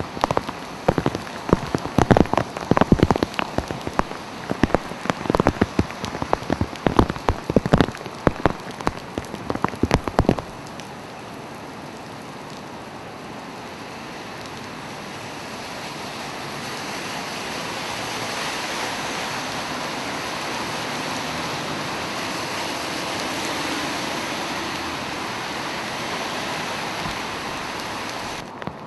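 Heavy rain. For about the first ten seconds large drops spatter loudly and unevenly close by. Then the sound changes abruptly to a steady hiss of rain falling on wet pavement, which grows a little louder.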